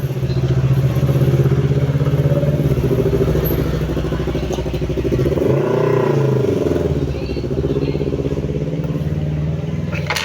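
A motor vehicle engine running steadily, its pitch rising and falling about six seconds in as it revs.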